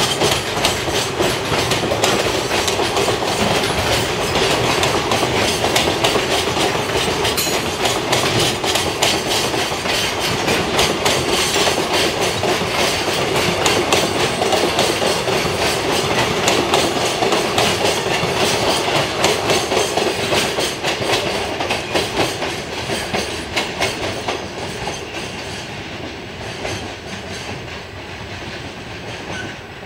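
Container freight train rolling past, its wagon wheels clicking rapidly and steadily over the rail joints. The sound fades over the last few seconds as the end of the train goes by.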